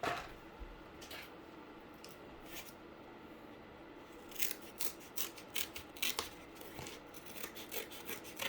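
Cardboard being cut by hand: a few scattered cuts, then from about four seconds in a quick run of short cutting strokes, a couple a second.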